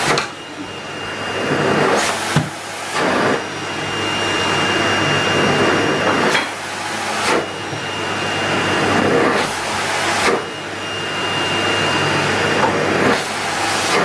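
A Numatic Henry cylinder vacuum cleaner running, with a steady rush of air and a thin high whine. Its sound dips and swells about six times, with a brief surge of rushing air at each change, as the hose is worked in and out of the inlet on the front of the body.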